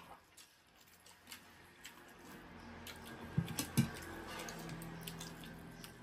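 Close-up eating sounds: scattered wet mouth clicks and smacks of chewing, with fingers working rice on plates, and two soft low thumps a little past halfway.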